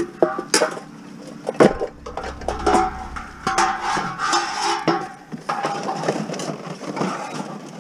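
A satellite dish being forced into a van packed with scrap: a run of knocks, clanks and scrapes as it is pushed against the door frame and the load, some with a short metallic ring.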